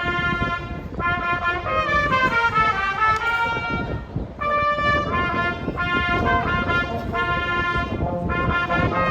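Brass music playing a melody in held, stepping notes, with brief breaks between phrases, over a low rumble.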